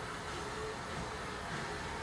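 Steam locomotive standing in the distance with steam hissing steadily over a low rumble.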